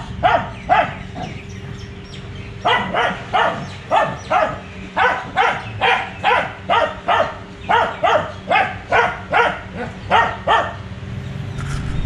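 A dog barking over and over in a kennel, about two to three barks a second, with a short pause about a second in.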